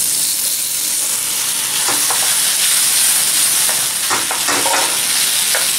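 Chicken, spinach and cooked macaroni sizzling steadily in a wok as they are stirred together with a wooden spatula, with a few short scrapes of the spatula against the pan.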